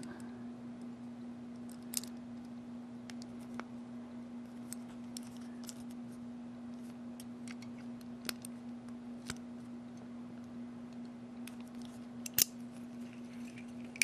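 Scattered small metallic clicks and taps from a brass Sesamee combination padlock being worked by hand, its dials and combination-change key knocking against the metal body. The sharpest click comes near the end. A steady low hum runs underneath.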